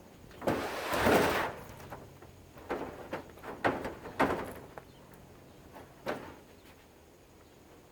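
Handling and disassembly noises from a heavy air purifier's housing: a scraping slide about a second in, then several separate knocks and clunks.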